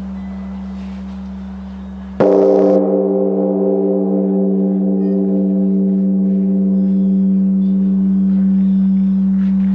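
Large Korean Buddhist temple bell (beomjong) struck once about two seconds in, over the fading deep hum of the previous stroke. It rings on with a deep hum and pulsing overtones.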